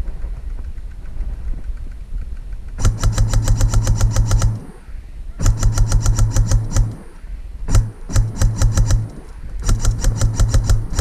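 Airsoft electric rifle firing several rapid bursts of one to two seconds each, about ten shots a second, with the gearbox motor humming under each burst.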